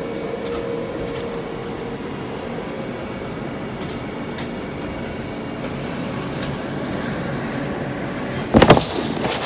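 Steady background hum of a convenience store at the copier, with faint short high beeps every two to three seconds and a brief loud rush near the end.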